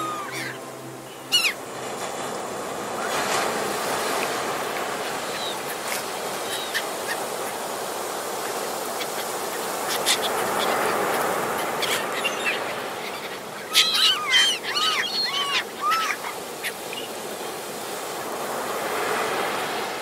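Sea waves breaking and washing up a beach in a steady rush of surf that swells and eases. About fourteen seconds in, a bird calls in a quick series of short cries.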